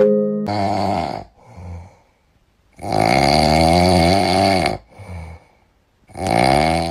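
Snoring sound effect: three drawn-out rasping snores, the middle one the longest, with a short faint breath in each gap.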